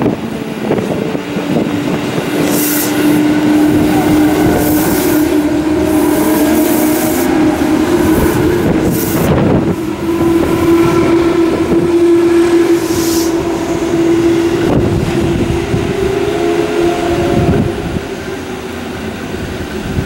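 Tobu 10030-series and 10000-series electric commuter train running past close by, wheels clattering on the track over a steady hum that rises slightly in pitch. The sound eases off near the end as the train moves away.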